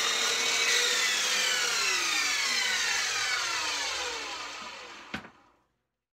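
Sliding compound miter saw running at speed, then spinning down once the trigger is let go, its whine falling steadily in pitch for about four seconds as it fades. A single sharp click comes just before it dies away.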